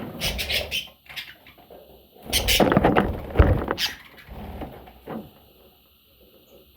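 Pet parrot squeaking and scrabbling, with scratchy rustles and a few sharp knocks, busiest in the first second and from about two and a half to four seconds in, then falling quiet.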